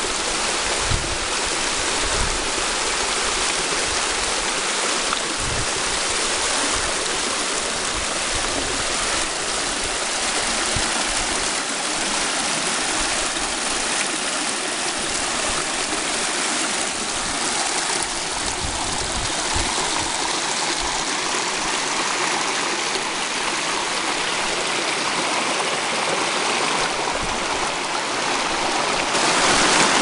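Small waterfall cascading down rock ledges into a shallow pool: a steady rush of falling water.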